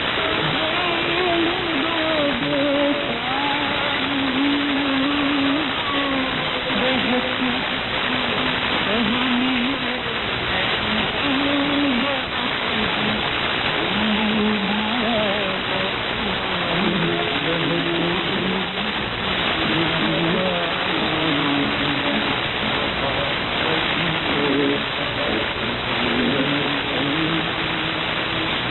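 SLBC's shortwave AM broadcast on 11905 kHz received on an SDRplay software-defined radio: a steady hiss of static, cut off above about 4 kHz, with faint programme audio drifting beneath it. The noise buries the weak signal.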